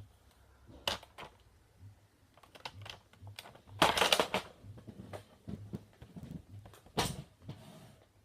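Hard plastic Nerf blasters being handled, giving scattered clicks and clacks. A quick clattering run of clicks about four seconds in is the loudest part.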